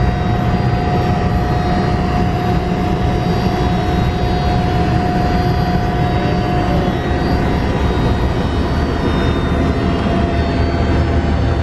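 Small plane's engine heard from inside the cabin while the plane rolls along the tarmac: a loud, steady drone with a constant high whine over a deep rumble.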